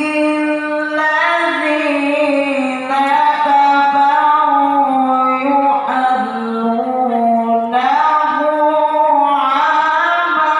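A solo voice chanting religious verses in long, drawn-out melodic phrases that bend up and down in pitch, amplified through a stage loudspeaker system.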